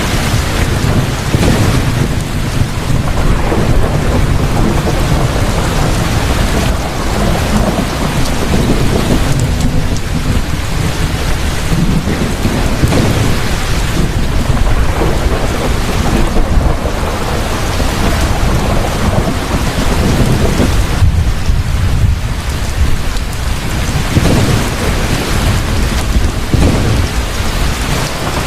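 Thunderstorm: steady heavy rain with low rolling thunder that swells and fades several times.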